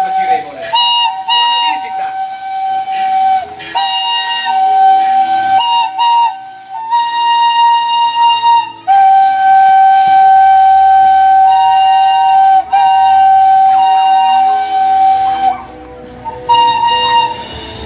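Steam locomotive whistle of an FS Gr. 625, sounded as a few short toots and then several long held blasts, stepping between two notes. Under it, steam hisses from the cylinder cocks as the engine gets under way.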